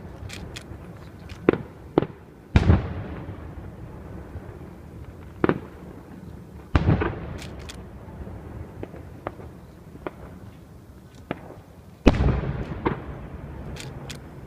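Fireworks bursting overhead: about half a dozen sharp bangs. The three biggest booms, near the start, about halfway and near the end, each trail off in a long rolling echo. Faint crackles and pops fall between them.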